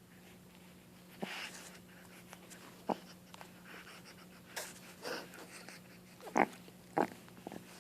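Boston terrier puppy coughing, wheezing and snorting in several short, irregular bursts, sounding as if she has mucus or phlegm in her throat.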